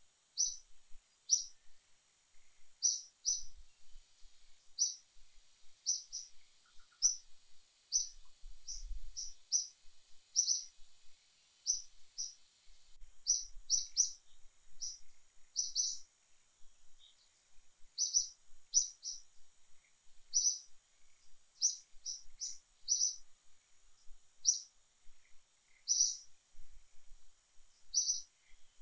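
A bird's short, high-pitched chirps, repeated irregularly all through, often in quick pairs or threes.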